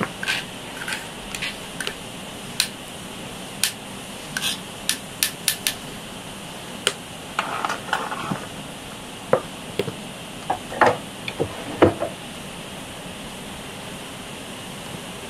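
Straw hand broom sweeping and knocking on wooden floorboards: irregular sharp knocks and clicks, with a short brushing swish about seven seconds in. The knocks stop about twelve seconds in.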